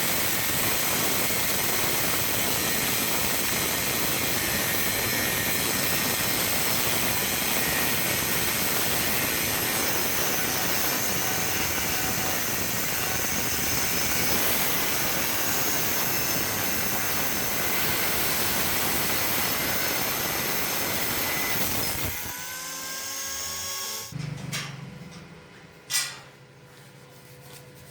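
Angle grinder grinding a steel leaf spring, running steadily under load; about three quarters of the way through it is switched off and its pitch falls as the disc spins down, followed by a single sharp click.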